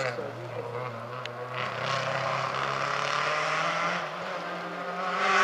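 Rally car engine on a tarmac special stage, heard at a distance. Its note drops at the start, then climbs slowly as the car accelerates, and gets louder near the end.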